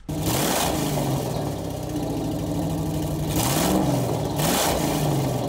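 Car engine idling, with two quick revs of the throttle a little past three seconds in.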